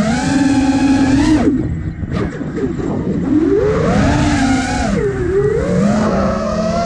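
Brushless motors of a 5-inch FPV quadcopter (iFlight Nazgul Evoque F5) whining, heard through the onboard camera's microphone, the pitch rising and falling with throttle. About a second and a half in, the whine drops out and leaves only rushing wind noise for about a second and a half, then climbs back in pitch and runs on, changing with the throttle.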